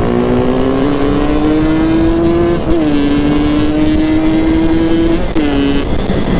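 Yamaha RX-King's 135 cc two-stroke single with an open 'pure sound' exhaust, pulling hard under throttle. Its note climbs slowly, drops sharply about two and a half seconds in at a gear change, then holds steady. The note falls away near the end as the throttle eases off.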